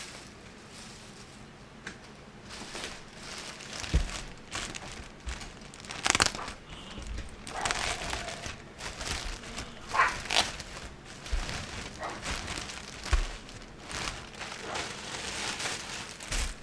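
Plastic packaging crinkling and rustling as items are unwrapped and handled, with a few sharp knocks at irregular moments.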